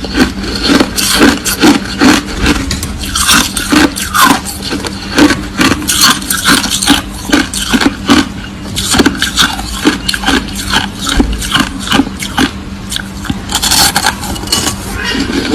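Crushed ice being chewed close to the microphone: rapid, irregular crunching, several crunches a second.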